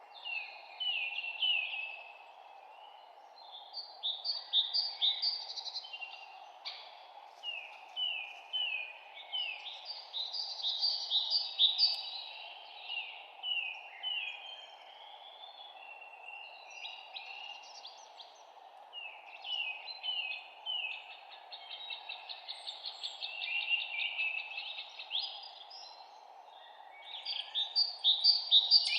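Songbirds chirping and singing in quick, repeated phrases a few seconds apart, the phrases sometimes overlapping, over a steady low background noise.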